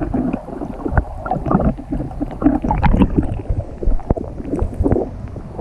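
River water sloshing and gurgling around a camera held at the waterline and dipping in and out of the current, with irregular splashes and knocks throughout.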